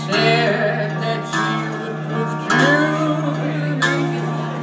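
Live acoustic blues guitar, picked, over a steady low bass note, with a man's singing voice coming in briefly near the start and again about halfway through.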